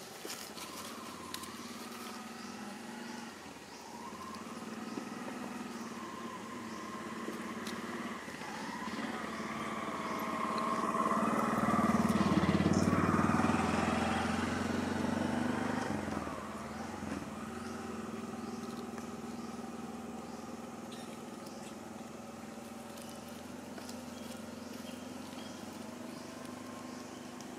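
A motor vehicle engine going past, growing louder to a peak about halfway through and then fading, over a steady low engine hum.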